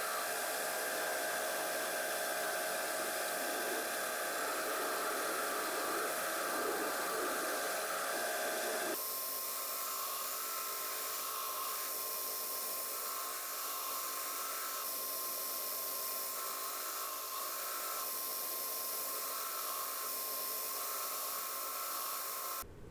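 Belt grinder running steadily while a steel knife blade is hollow-ground on its 10-inch contact wheel: an even hiss with a held whine, whose tone shifts about nine seconds in and which cuts off just before the end.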